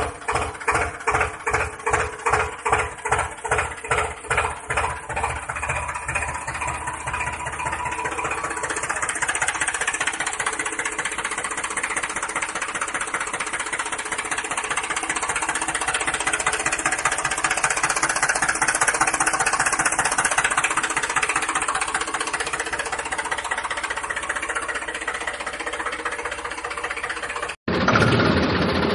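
Tractor engine chugging in slow, even beats of about three a second, then settling into a steadier, faster running sound.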